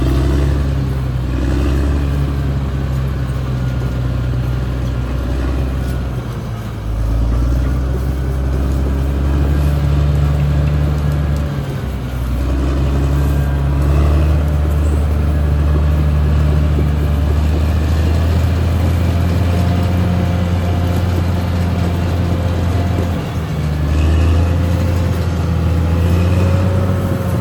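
Caterpillar D6R XL crawler bulldozer's diesel engine running steadily under load as the machine travels, with its pitch rising and falling slightly every few seconds.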